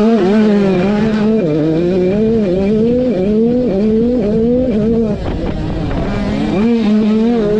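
KTM supermini two-stroke dirt bike engine run hard on the throttle, its pitch climbing and dropping back several times, with a short throttle-off dip a little past five seconds in before it picks up again.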